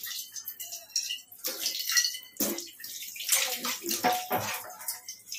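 Tap water running and splashing into a stainless-steel sink while a non-stick pan is rinsed and scrubbed under it, with irregular knocks and short rings of the pan handled against the sink.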